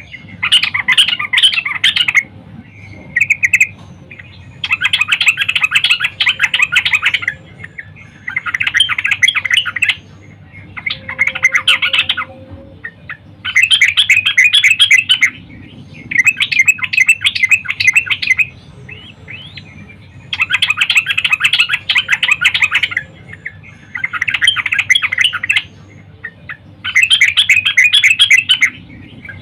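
Yellow-vented bulbul (trucukan) calling in about ten loud bursts of fast, bubbly chattering notes, each one to two seconds long with short pauses between them. This is the female's call to males, played to lure them into singing.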